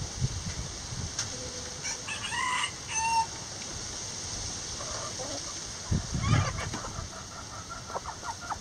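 Backyard chickens clucking and calling: a few short pitched calls, then a louder call with low thumps about six seconds in, and a quick run of clucks near the end.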